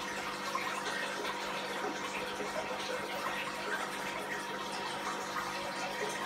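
Aquarium water trickling and bubbling steadily, with a constant hum underneath, as from the tank's running filter or pump.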